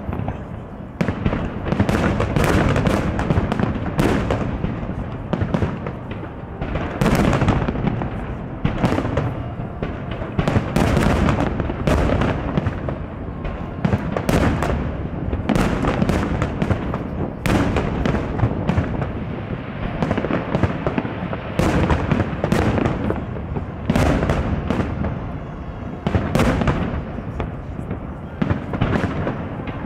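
Fireworks display: aerial shells bursting in a continuous barrage, sharp reports coming every second or so over a rolling low rumble of overlapping booms.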